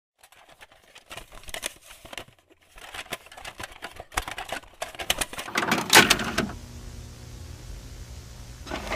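Analog tape playback noise: scattered clicks and crackle with a louder burst about six seconds in, then a steady low electrical hum with faint hiss.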